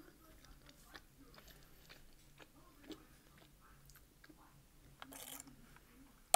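Faint close-up chewing and mouth clicks of a person eating, then, about five seconds in, a short slurp of a drink through a metal straw.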